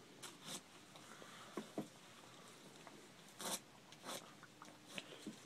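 Faint, short rasps of a knife cutting through membrane as the hide is pulled off a gray fox carcass, a few scattered strokes, the loudest about three and a half seconds in.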